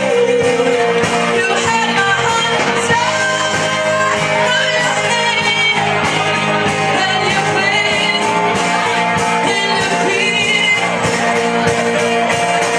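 Live rock band playing: amplified electric guitars over a steady beat, with a lead vocalist singing into a microphone.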